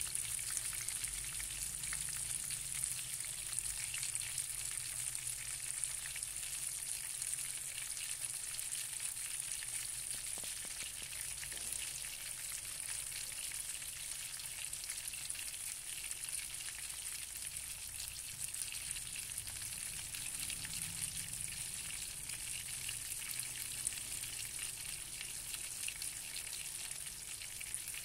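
Oil sizzling steadily around a large piece of fish shallow-frying in a nonstick pan, with fine crackles throughout.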